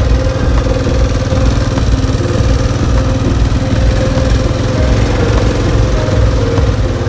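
Motorbike engine running steadily while riding, under a heavy low rumble of wind on the microphone.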